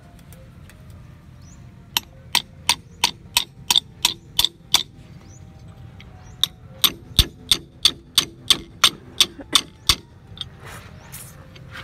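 Hammer blows on metal at a car's coil-spring suspension strut, with a wrench fitted to the strut. Sharp, ringing metallic strikes come in two runs of about ten, roughly three a second: one starting about two seconds in, the other a little past six seconds.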